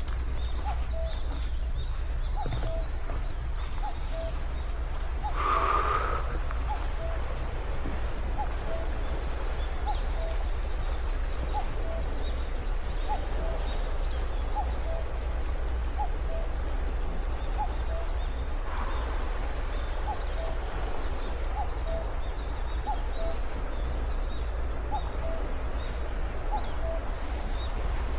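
Walking footsteps, each step giving a short small squeak, about one and a half a second and alternating slightly in pitch, over a steady low rumble. A louder brief sound stands out about five seconds in.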